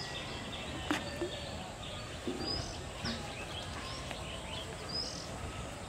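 Small birds chirping and calling off and on over a steady hiss of outdoor background noise, with one sharp click about a second in.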